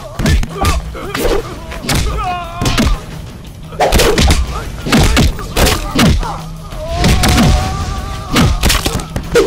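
Film fight-scene sound effects: a rapid series of heavy punch and kick thuds, one after another, over a dramatic background score.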